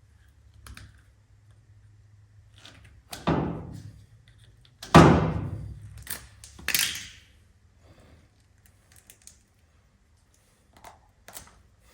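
Three heavy thunks of tools and metal being handled, about a second or two apart, the middle one the loudest, each with a short dying tail, with faint clicks and clatter before and after.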